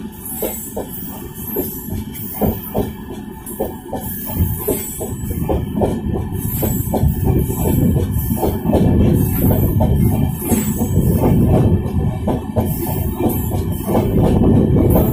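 Coaches of an Indian Railways express train passing close by at speed: rapid clickety-clack of wheels over rail joints over a steady rumble, growing louder about halfway through.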